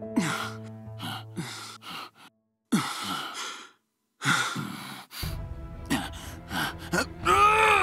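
Background music of held tones, with men's short gasps and grunts of effort from a scuffle over it; the sound drops out briefly twice around the middle.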